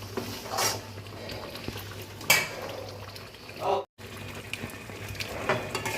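A metal spoon or spatula knocking and scraping against a cooking pan a few times while chicken kasha cooks in it, over a steady low hum. The sound cuts out completely for a moment about two-thirds of the way through.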